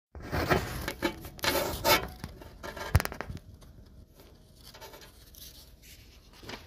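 Handling noise from a handheld camera being moved and adjusted: rustling and rubbing for about three seconds, ending in a sharp click, then faint room tone.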